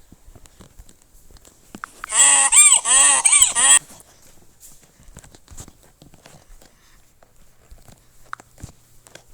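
Donkey braying sound effect: a short hee-haw of about three rising-and-falling calls lasting under two seconds, cutting off abruptly. Faint scattered clicks before and after it.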